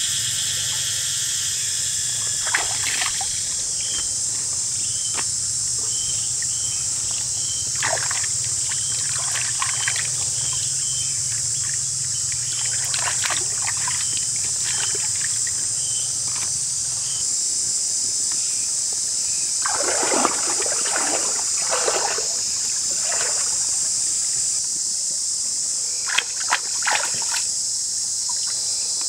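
Water splashing and trickling as leafy greens are swished and rinsed by hand in a shallow stream, with the loudest splashes around twenty seconds in. Under it runs a steady high-pitched insect drone, with a short chirp repeated about twice a second through the first half.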